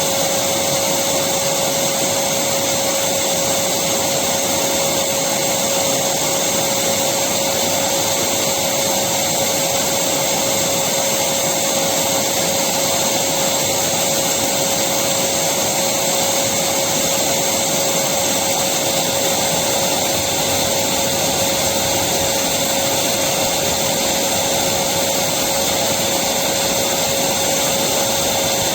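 Electric vacuum cleaner running continuously: a steady rush of air with a constant hum in it, unchanging throughout.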